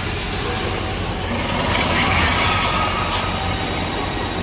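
Studio Tour tram rattling and rumbling, mixed with the 3-D jungle show's sound-effects track. The sound swells louder about two seconds in.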